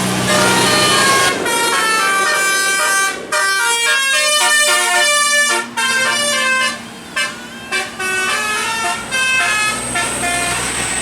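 Bus 'telolet' musical air horn playing a quick melody of stepped notes in phrases, with short breaks between them.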